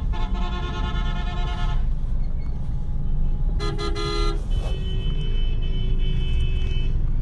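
Road traffic with vehicle horns honking. One horn blast lasts about two seconds, another short blast comes about three and a half seconds in, and then a steadier horn tone holds for a couple of seconds. A steady low rumble of engines runs underneath.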